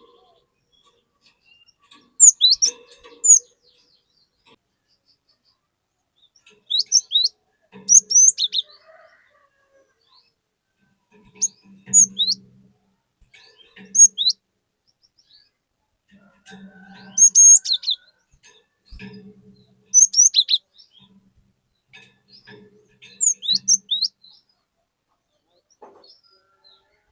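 Cinereous tit (glatik batu) singing: short bursts of sharp, high notes that sweep downward, repeated every two to five seconds with short pauses between phrases.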